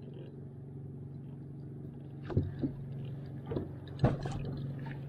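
A boat motor hums steadily while the wake of a passing boat slaps against the hull in several splashes and knocks from about halfway through, the sharpest knock about four seconds in.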